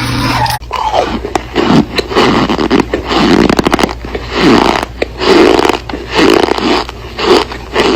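Close-miked chewing of something brittle, a crunchy crackle about once a second.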